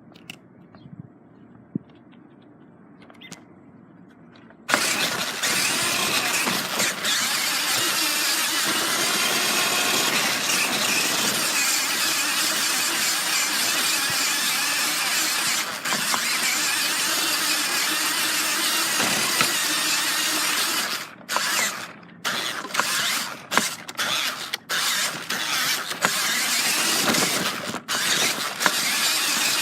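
Battery-powered RC car's motor, gears and tyres running at speed right by the camera strapped to the car, starting suddenly about five seconds in. Near the end the sound cuts out and comes back several times as the throttle is let off and reapplied.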